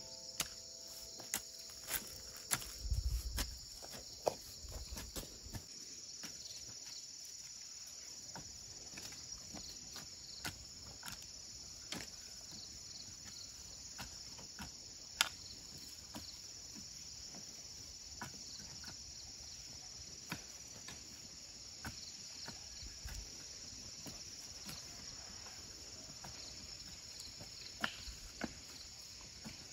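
Metal hoe blade striking and scraping dry, loose soil in short, irregular chops about once a second, a few landing as dull thuds, over a steady high chirring of insects.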